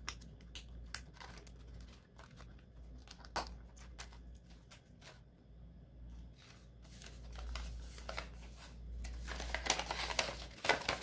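Paper and plastic being handled: scattered light clicks and rustles from a clear plastic binder pocket and card, then dense paper crinkling near the end as a folded sheet is opened.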